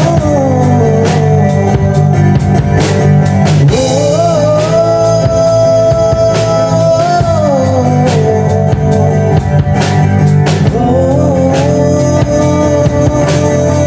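A band playing live: a singer over guitar and drum kit, with a steady drum beat. Partway through the singer slides up into one long held note and slides back down.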